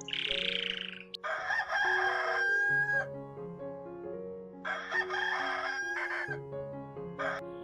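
Rooster crowing twice, each crow a long call ending on a held note, with a few short clucks near the end, over soft background music.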